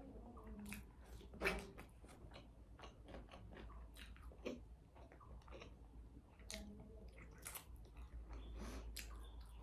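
Close-up chewing and eating by hand: faint wet mouth sounds and small clicks and smacks as rice and meat curry are chewed, with one louder click about a second and a half in.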